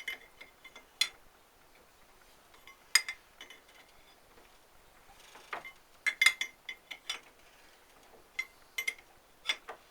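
Steel hand tools and parts clinking and knocking on a workbench as they are handled and set down: a scatter of sharp metallic clinks in irregular clusters, densest around the middle.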